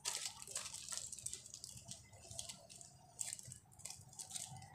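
Clear plastic bag wrapped around a TV remote control crinkling in short, irregular bursts as it is handled.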